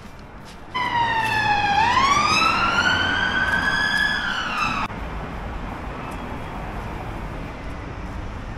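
Emergency vehicle siren wailing: its pitch dips, then rises slowly and eases down again. It starts and cuts off abruptly after about four seconds, leaving steady street noise.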